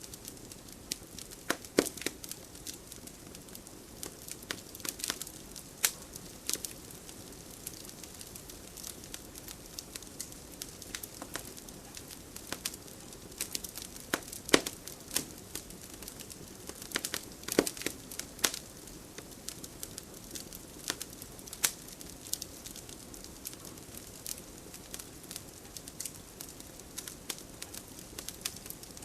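Wood fire burning in a fireplace: a soft steady hiss under irregular sharp crackles and pops, with a few louder snaps.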